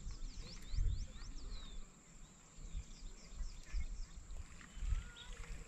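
Low, gusty rumble of wind on the microphone. About half a second in, a bird sings a quick run of slurred whistled notes, and a single slurred whistle follows near the end.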